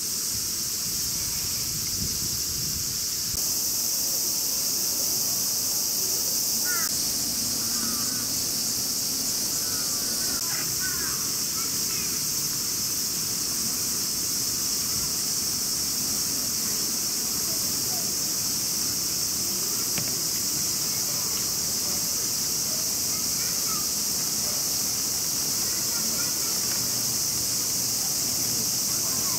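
Chorus of cicadas, a steady high-pitched drone. A few short chirping calls come in about a third of the way through.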